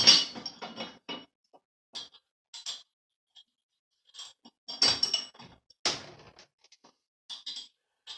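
Steel parts being handled and fitted, clanking and clinking with a ringing metallic tone. A loud cluster of knocks comes at the start, another about five seconds in, and one strong clank about six seconds in, with lighter clinks between.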